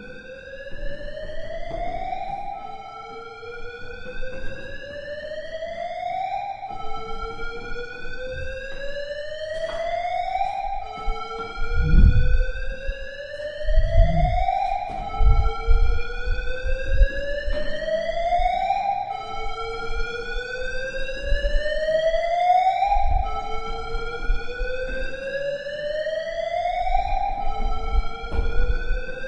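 Electronic warning alarm sounding a rising whoop tone over and over, each sweep climbing in pitch for about two seconds and then dropping back to start again. Low rumbles come in under it midway through and again near the end.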